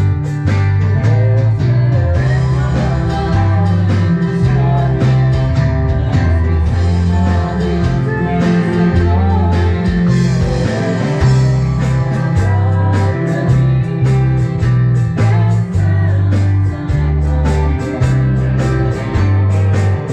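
Live band playing a country-rock song: a woman singing into a microphone over electric guitar, electric bass and a drum kit with steady cymbal hits.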